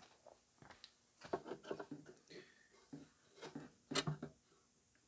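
Scattered light clicks and knocks of hands working a car headlamp assembly's plastic mounts loose, with a sharper click about four seconds in.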